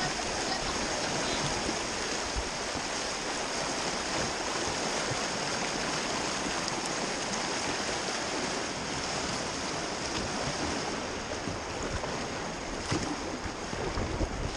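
River water rushing and splashing around a kayak's bow as it runs a riffle, a steady rush of noise throughout, with a few louder knocks near the end.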